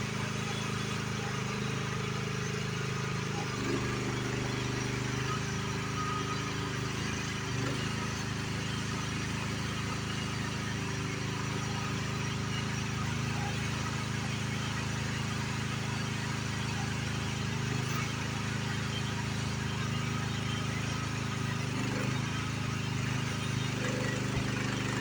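Engine of a small demolition machine running steadily, its pitch shifting up and down a few times as it works.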